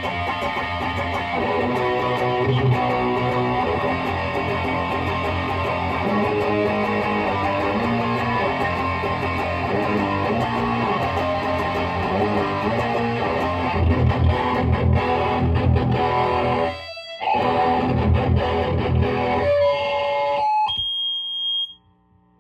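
Distorted electric guitar riffing: a Gibson Les Paul through a Lone Wolf Audio Bullet Belt pedal into a Peavey 6505 amp and 2x12 cab. The playing breaks off briefly about three quarters through, resumes, then ends with a held note and a short high tone before cutting off to amp hum near the end.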